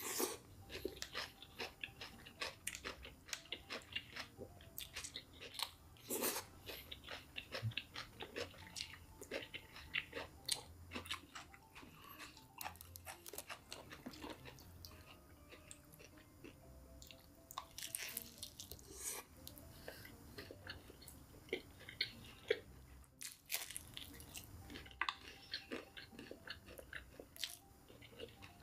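Close-up crunching and chewing of crispy KFC fried chicken, with many sharp crackling crunches of the breaded coating in quick, uneven succession and a brief pause about three-quarters of the way through.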